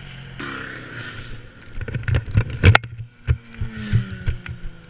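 Motorcycle running off the road into roadside brush: a rush of noise, then a run of knocks and thuds as it crashes through, loudest about two and a half seconds in. Afterwards the engine keeps running with its pitch slowly falling.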